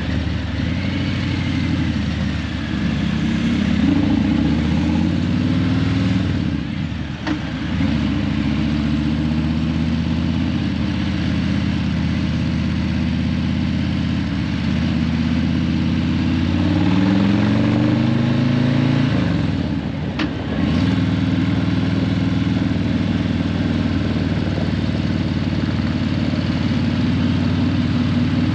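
Harley-Davidson Breakout 117's Milwaukee-Eight 117 V-twin, breathing through Vance & Hines Eliminator 300 slip-on mufflers, under way in traffic. The engine note rises in pitch as it pulls through the gears, with short breaks at the shifts about seven and twenty seconds in.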